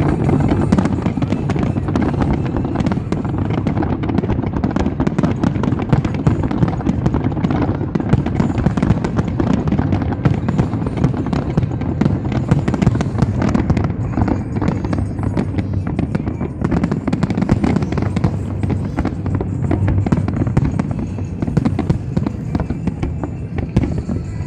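Fireworks display going off in a dense, continuous barrage: rapid, overlapping bangs and crackles with no break, thinning a little near the end.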